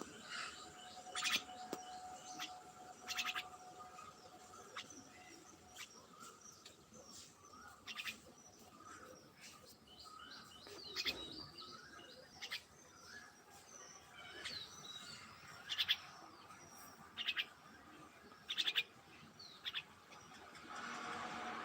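Several birds chirping and calling, with short, louder harsh calls every few seconds.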